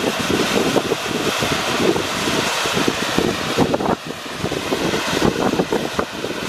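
Volcanic steam vent (fumarole) jetting steam out of sulfur-crusted rocks with a steady, loud rushing roar.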